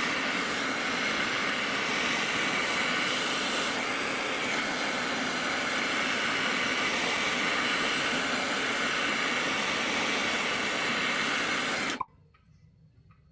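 Gas torch flame burning with a steady hiss while preheating steel engine mounts before welding, shut off abruptly near the end.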